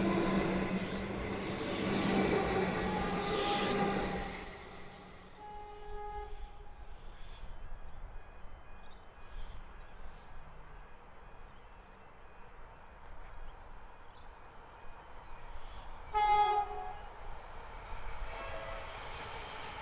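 Comeng electric train running past with a steady hum and rumble that fades out about four seconds in. An approaching Siemens Nexas electric train then sounds its horn twice: a faint toot about six seconds in and a short, loud blast about sixteen seconds in. Its rumble grows near the end.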